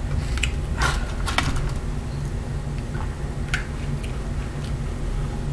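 A steady low background hum with scattered small clicks and crackles of cooked shrimp being peeled by hand over a plate.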